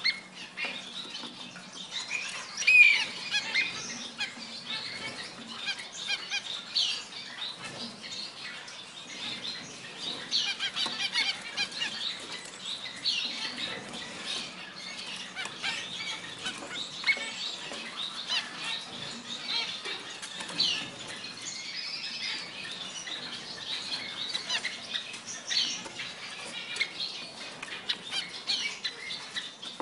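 Caged masked finches calling, many short, high chirps all through, mixed with small clicks and wing flutters as the birds hop and fly to the feeder.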